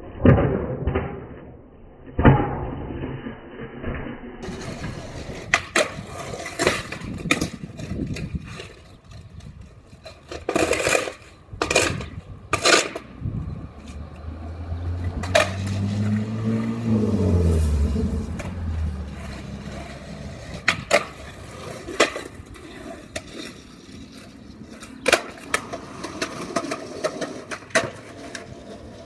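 Skateboard rolling on rough asphalt, with repeated sharp cracks of the tail popping and the deck and wheels slapping the ground on landings and bails. Around the middle, a low hum swells and falls in pitch.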